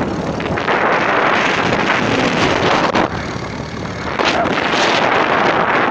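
Wind rushing over the microphone aboard a moving small boat, with the boat's engine and water noise mixed in as a steady loud rush. It drops for about a second around three seconds in, then comes back.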